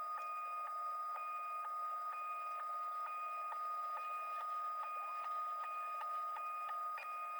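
LABISTS X1 Mini 3D printer's stepper motors running with a steady high-pitched whine, broken by short ticks about twice a second.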